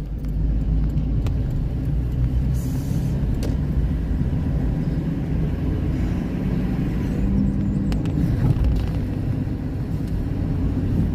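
Car engine and tyre noise while driving along a city street: a steady low rumble.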